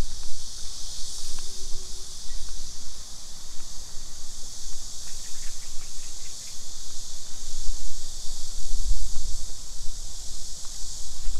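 Steady, high-pitched chorus of insects, with a fluctuating low rumble beneath it and a brief run of faint ticks about five seconds in.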